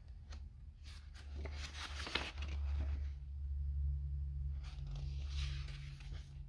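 Pages of a paper instruction booklet being turned by hand: two brief paper rustles, about two seconds in and again about five seconds in, over a low steady hum.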